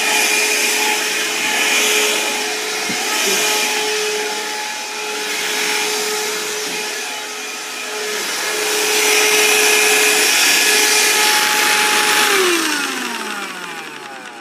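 Shark cordless 15.6-volt handheld vacuum running: a steady motor whine over suction hiss that swells and dips as it is worked up and down the steps. Near the end it is switched off and the whine falls in pitch as the motor spins down.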